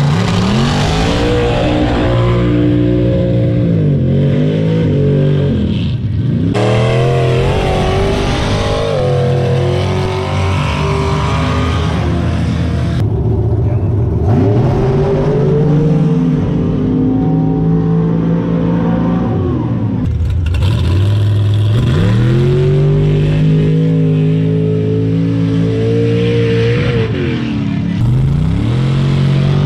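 Mud racing truck engine revving hard under full throttle, its pitch climbing and holding high, then falling away as the throttle comes off, about four times over.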